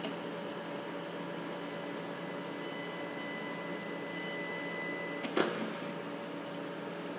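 Steady hum of a laboratory module-assembly machine. A faint high whine runs for about three seconds and ends in one sharp click about five seconds in.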